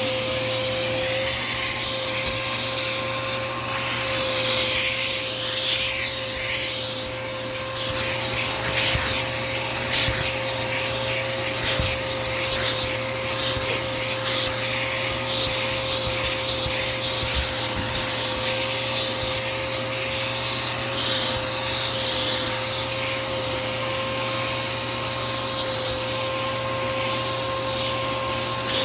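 Dirt Devil Power Max vacuum cleaner running steadily with a constant motor whine. Its suction noise rises and falls as the nozzle is worked over the couch base and rubs on the fabric.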